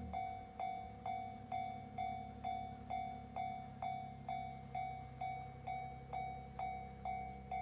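Japanese level-crossing warning bell ringing steadily, about two strikes a second, over the low rumble of a train.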